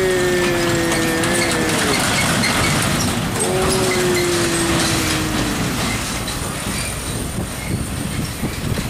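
Hino truck towing a drawbar trailer passing, its diesel engine and rolling noise steady throughout. In the first few seconds two long tones with overtones slide slowly down in pitch, the second starting about three seconds in.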